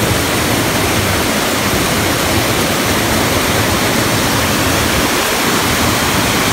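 Water rushing over a rock ledge in a small stream waterfall: a steady, even rush of falling water.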